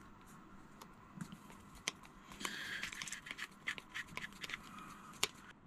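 Screwdriver turning small screws into the cap of a Suzuki 2.5 hp outboard's carburetor. Faint metal scraping and scattered clicks, busier from about two seconds in.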